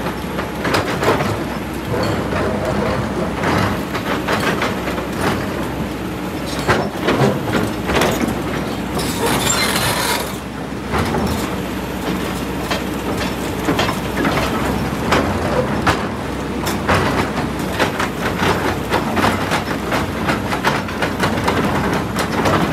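Kobelco excavator's diesel engine running under load, with repeated knocks, clanks and scraping as the steel bucket pushes a large boulder against rock and soil. A brief hiss comes about nine seconds in.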